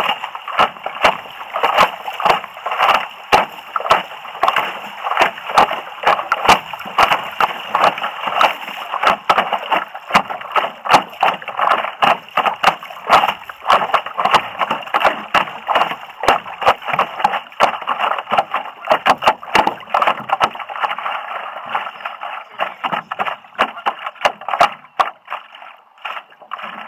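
River water slapping and splashing against the front of a stand-up paddleboard, heard right at the waterline: a dense, irregular run of sharp splashes over a steady rush of moving water. The splashes thin out over the last few seconds.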